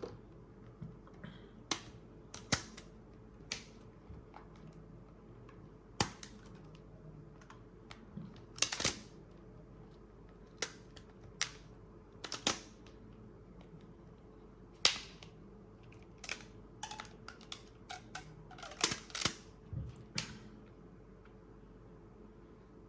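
Rubber bands being pulled off a phone that was clamped while its glue dried, giving irregular sharp snaps and clicks, about twenty of them, some much louder than others.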